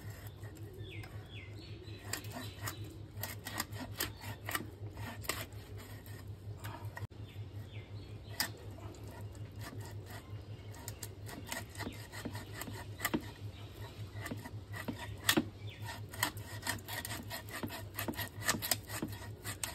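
Pangas catfish being cut on a bonti, an upright fixed blade: the fish pieces are pushed and drawn against the blade, making repeated irregular scraping and sharp clicking sounds. A steady low hum runs underneath.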